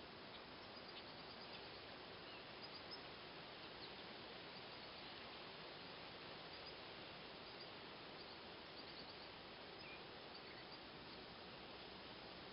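Faint outdoor ambience: a steady hiss with scattered brief, high chirps of distant birds.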